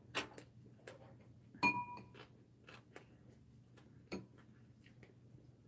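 Metal chopsticks and spoon clicking against a ceramic bowl while eating: a few light clicks, the loudest about one and a half seconds in ringing briefly, and another near the four-second mark.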